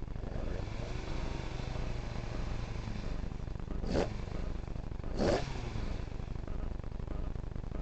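Ford Escort Mk2 rally car's engine idling with a steady low rumble, heard from inside the car. Two short, sharp bursts stand out about four and five seconds in.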